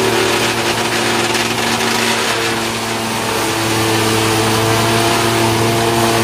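Belt-driven wood sawdust machine (wood crusher) running on its electric motor, grinding wood into sawdust: a steady hum with a rushing hiss over it.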